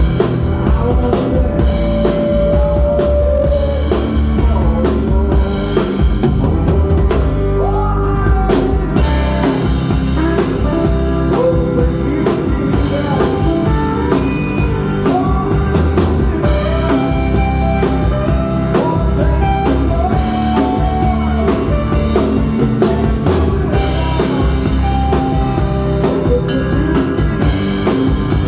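Rock band playing live: drum kit, bass guitar and electric guitars, with a wavering melodic lead line over the beat.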